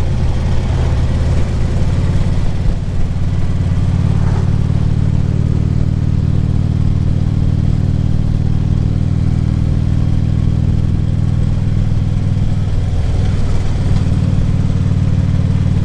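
2014 Harley-Davidson Ultra Classic Limited's V-twin engine running steadily at cruising speed, heard through a helmet-mounted microphone with road and wind noise; the engine note shifts briefly about thirteen seconds in.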